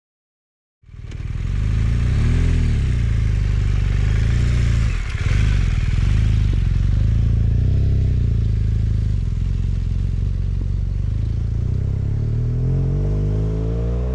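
BMW GS adventure motorcycle engine running at a low, even pace, starting about a second in, with a couple of brief throttle blips. The revs climb near the end as the bike pulls away.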